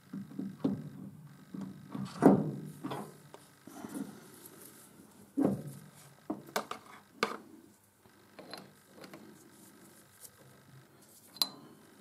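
Irregular steel-on-steel clinks and knocks as a four-jaw lathe chuck is worked onto a D1-4 camlock spindle nose, the loudest knock about two seconds in and a sharp click near the end.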